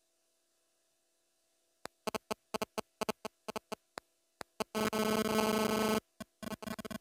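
A buzzing electronic tone chopped into rapid, irregular short pulses, starting about two seconds in after near silence. About five seconds in it holds steady for roughly a second, then the stuttering pulses resume.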